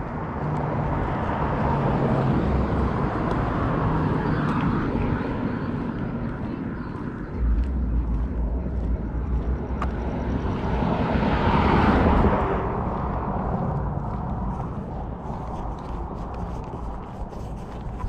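Road traffic passing: a steady wash of car and tyre noise with low engine rumble, swelling as vehicles go by, loudest as one passes close about two-thirds of the way through, then fading.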